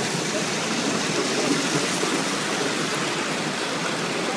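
American Flyer S gauge model freight cars rolling past on the layout track: a steady rushing rumble of many wheels on the rails.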